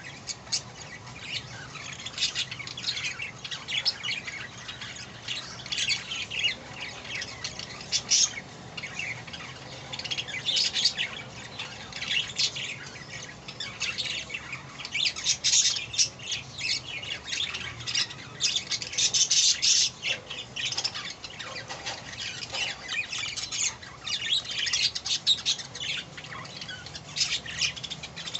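Budgerigar chicks squawking and chirping in a rapid, near-continuous chatter of short, high calls, busiest about halfway through.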